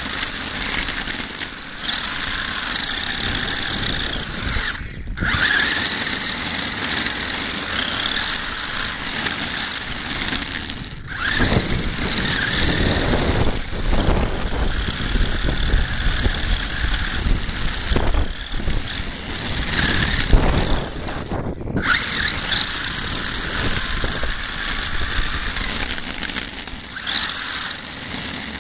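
HSP RC buggy's motor and drivetrain whining as it drives fast on asphalt, the pitch rising again and again as it accelerates, with tyre and road rumble heard through the car-mounted microphone. The sound cuts out almost completely three times, about 5, 11 and 21 seconds in, as the throttle is let off.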